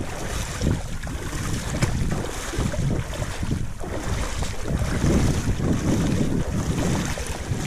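Wind buffeting the microphone in uneven gusts, over shallow seawater splashing around legs as someone wades through it.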